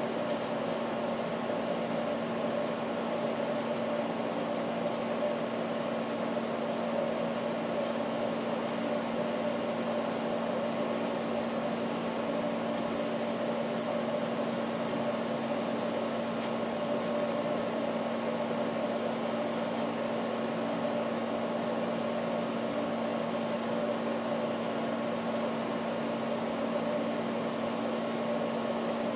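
Steady machine hum, like a fan or appliance motor running: a constant drone with a few fixed pitches over a light hiss.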